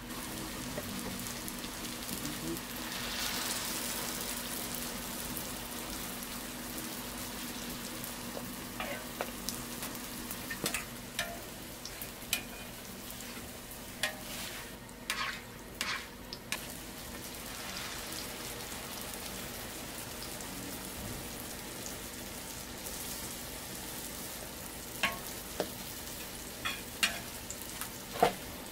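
Hotteok (Korean sweet pancakes) frying in a shallow layer of oil on a flat griddle: a steady sizzle. Scattered sharp metal clinks and taps from the hotteok press and utensils come through it, more often in the middle and near the end.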